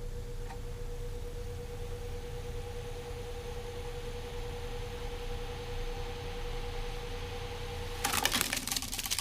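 Akai GX-266 II reel-to-reel tape deck running with a steady whine over hiss and hum. About eight seconds in, the whine stops and a rapid clatter of clicks follows.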